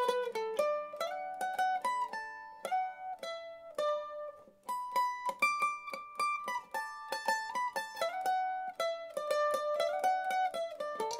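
Ashbury AM130 mandolin, with a solid mahogany top and sapele back and sides, picked with a plectrum in a single-note melody: a steady run of quick plucked notes with a few longer ringing ones.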